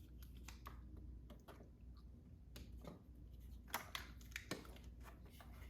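Faint scattered clicks and small ticks of a hex key turning a bicycle's stem bolts and the parts being shifted by hand, with a few sharper clicks about four seconds in.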